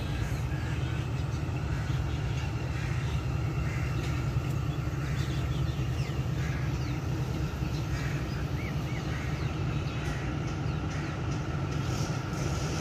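Steady low rumble of a train at a station, with a few bird chirps above it.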